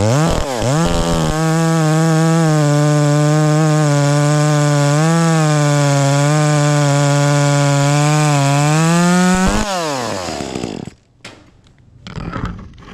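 Chainsaw blipped up and down a couple of times, then held at full throttle for about eight seconds, cutting a thin slice off the top of a cut trunk to clean up the cut, throwing a spray of sawdust; the engine winds down about ten seconds in.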